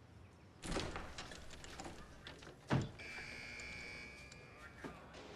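A noisy clatter, then a heavy door thunk about three seconds in, followed straight away by an electric buzzer sounding steadily for nearly two seconds.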